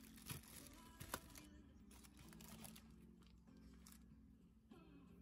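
Clear plastic zip bag crinkling and rustling as it is handled, with a sharp click about a second in. The crinkling stops after about a second and a half, leaving only a faint low steady hum.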